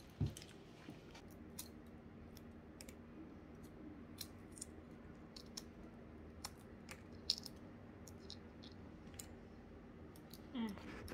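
Faint, irregular small clicks and crackles, one or two a second, over a steady low hum.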